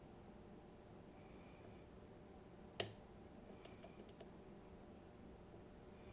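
Metal lock pick working the pins of an ABUS TS 5000 pin-tumbler lock: one sharp click nearly three seconds in, then a quick run of small clicks.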